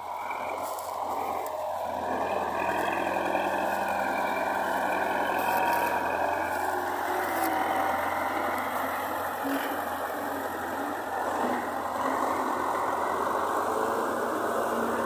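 Engine of heavy farm machinery running steadily, growing louder in the first couple of seconds and then holding.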